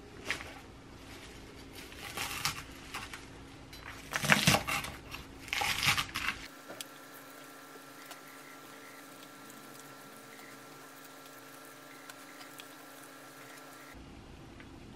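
Food-prep handling sounds: a kitchen knife cutting minari on a wooden cutting board and the greens rustling, in a few short bursts in the first half, loudest around the middle. After that only a faint steady hum.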